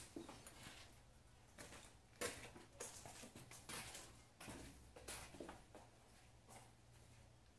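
Faint, scattered knocks and scrapes of handling a porcelain toilet bowl and tools on a tiled floor; the sharpest knock comes a little over two seconds in.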